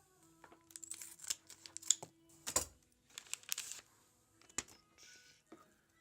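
A trading card pack being opened by hand: the wrapper crinkling and tearing, with scattered small clicks and taps and a louder thump about two and a half seconds in.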